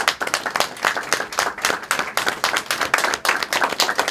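A small group of people applauding, a dense, steady patter of hand claps.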